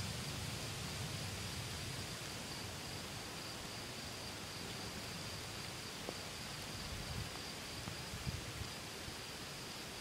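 Steady chorus of night insects, a thin high buzz that holds one pitch, over a low outdoor rumble that eases off in the first couple of seconds, with a few faint ticks later on.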